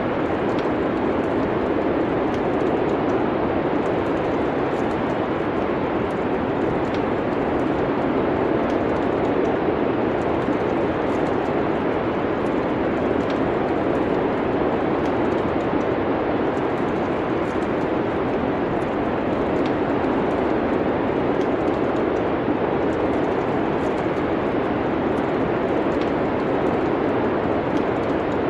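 Steady wind noise of a snowstorm with the faint, scattered crackling of a wood fire.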